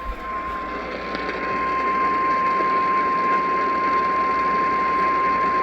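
NOAA Weather Radio 1050 Hz warning alarm tone: a single steady tone held over a hiss of radio static. It signals that a warning broadcast follows, here a severe thunderstorm warning.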